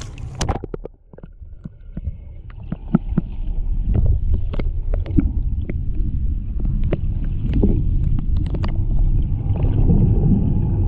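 Underwater sound picked up by a camera held just below the surface. A sharp splash-like crackle as it goes under at the start, then a muffled low rumble that gets louder, with many scattered sharp clicks and ticks.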